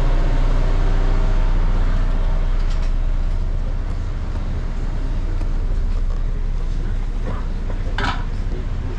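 Steady low engine rumble, with a sharp clink about eight seconds in.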